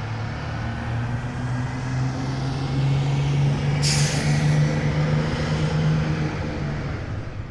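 School bus engine running, its hum rising slightly in pitch, with a sudden sharp air-brake hiss about four seconds in that tails away. The engine sound fades near the end.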